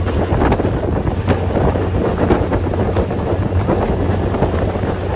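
Wind buffeting the microphone on a small aluminum fishing boat under way across a lake, over a steady low hum of its motor and the rush of water along the hull.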